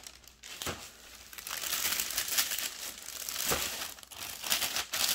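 Plastic packaging crinkling and rustling as it is handled. It is faint at first, then crackles steadily from about a second and a half in.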